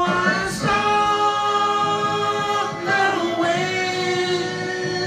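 An old man singing into a karaoke machine, holding two long drawn-out notes.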